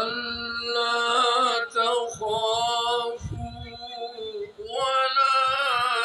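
A voice singing, or chanting in a devotional style, in long held notes that waver in pitch. It comes in phrases of one to two seconds with short breaks between them.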